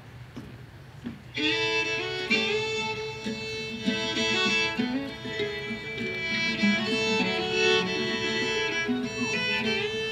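Acoustic string band starting a song's instrumental introduction: a fiddle leads, with guitar and other plucked strings underneath. It comes in about a second and a half in, after a quiet start.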